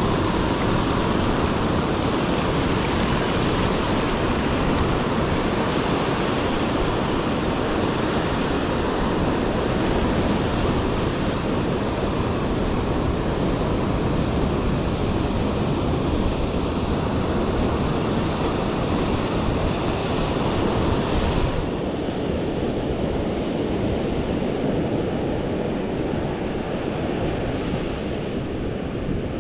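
Ocean surf washing steadily onto the shore, with wind rumbling on the microphone. About twenty-two seconds in, the high hiss drops away abruptly and the sound turns duller.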